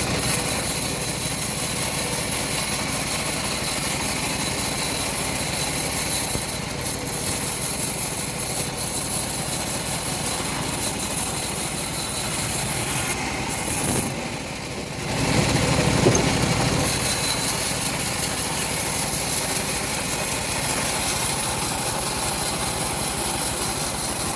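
Engine of a homemade bandsaw mill running steadily, with a brief dip in level about two-thirds of the way through.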